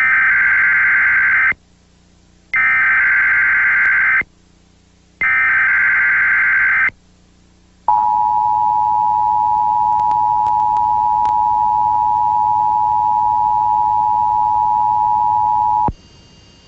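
Emergency Alert System opening sequence: three bursts of SAME digital header data tones, each about a second and a half long with a second's pause between them. A steady two-tone attention signal follows, held for about eight seconds before it cuts off, announcing an EAS test message.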